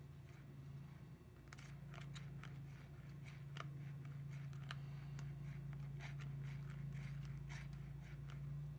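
Small plastic scoop stirring flavour powder into water in a plastic tray, giving faint irregular scrapes and clicks against the plastic, over a steady low hum.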